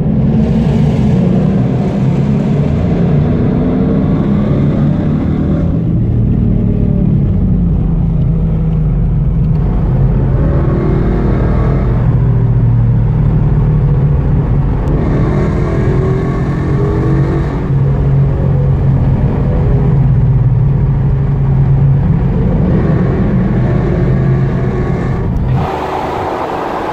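Muscle-car V8 engines cruising at motorway speed: a steady, loud low drone from the engines and exhausts, heard from inside a car passing through a road tunnel. The sound shifts abruptly several times.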